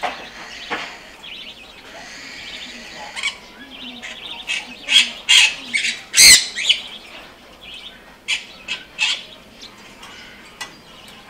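Pet birds chirping and squawking in short, sharp, irregular calls, with one loud squawk about six seconds in.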